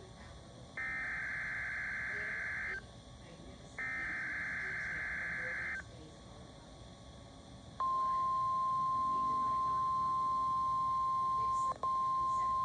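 NOAA Weather Radio emergency alert tones: two bursts of the screeching SAME digital header, each about two seconds long and a second apart, then after a short pause the steady Warning Alarm Tone begins, with a momentary dropout near the end. They signal the start of a severe thunderstorm watch alert.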